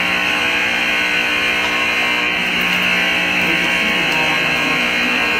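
Ice rink horn sounding one long, loud, steady blast.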